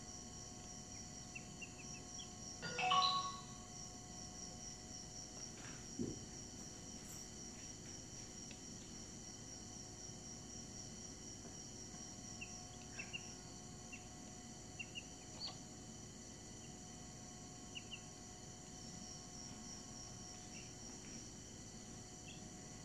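Brahman chicks in a brooder peeping faintly now and then, with one louder call about three seconds in and a soft knock around six seconds. A steady high-pitched pulsing trill runs underneath throughout.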